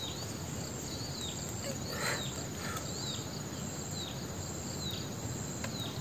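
Insects, crickets among them, chirring steadily in the field, with short falling chirps repeating about once a second.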